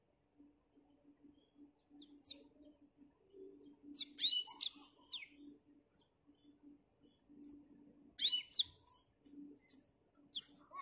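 Black-throated canary singing in short, high, quick phrases: a lone note about two seconds in, then a rapid warbled run about four seconds in and another about eight seconds in, with single notes between.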